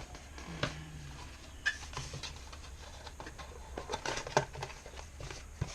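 Light handling noise: scattered small clicks and taps, more of them in the second half, as small objects are moved about on a workbench.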